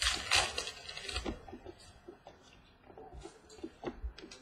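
Trading cards and their pack wrappers being handled: a burst of crinkly rustling at the start and again about a second in, then quieter card slides and small taps.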